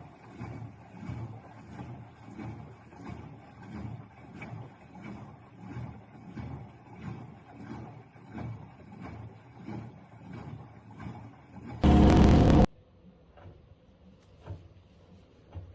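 Gorenje WGAM474A washing machine running a wash, its drum tumbling the laundry in a rhythmic churn about one and a half times a second. Near the end the churning gives way to a short, very loud burst lasting about a second, then fainter ticks.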